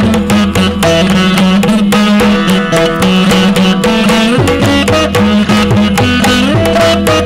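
Saraswati veena playing a Carnatic melody with sliding, bent notes over a steady drone, accompanied by a mridangam's rapid hand-drum strokes.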